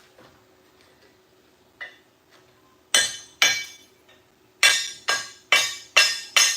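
A hammer striking steel in sharp, ringing blows: two strikes, a pause, then a steady run at about two blows a second. This is typical of hammering on a fresh weld.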